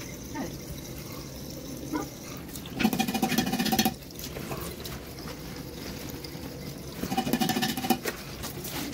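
Water running and splashing as a face is washed, with two louder bursts of rapid rasping, each about a second long, about three and seven seconds in.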